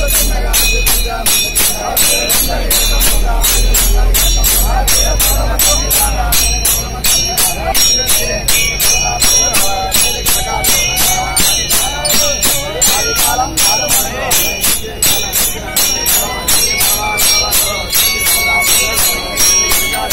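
Procession percussion: metallic bells and clashing percussion struck in a steady beat of about three strokes a second, ringing throughout. A low hum sits under it for the first several seconds.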